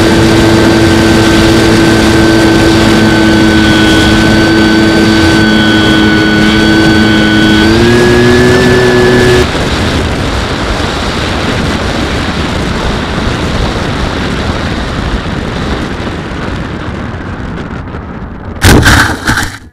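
Skywalker X-8's electric pusher motor and propeller whining steadily, heard through the onboard camera. The whine rises slightly in pitch and then cuts off at about half way. After that, wind rushes past the gliding airframe and slowly fades as it slows. Near the end comes a short burst of thumps and scraping as the plane belly-lands in grass.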